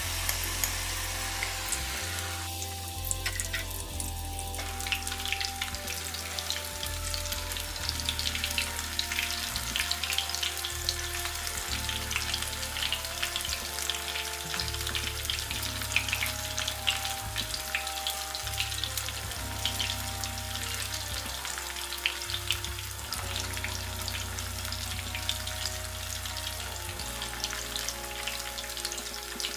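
Batter-coated baby corn deep-frying in hot oil, a steady dense sizzle and crackle, over background music of held notes.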